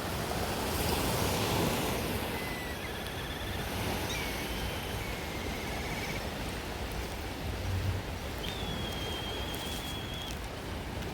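A steady rush of wind and surf, with a few faint, high, wavering whistle-like notes now and then, the longest near the end.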